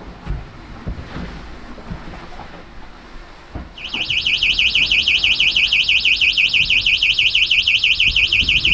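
The boat's navigation collision alarm goes off about four seconds in: a loud, high electronic tone that warbles rapidly. It was set off by cargo ships showing up on AIS. Before it there are low knocks and a rumble of wind and water.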